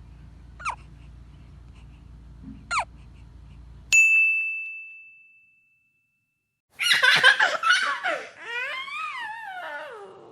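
Over a low hum, two short, sharp chirps about two seconds apart. Then, about four seconds in, a single loud bright ding rings out over a second and a half. After a brief silence comes a loud, wavering, voice-like sound that slides down in pitch, like a giggle.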